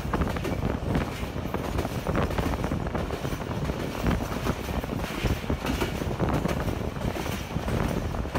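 Passenger train running across a steel girder railway bridge, heard from the carriage doorway: a steady rumble with a dense rattle of wheels on the rails.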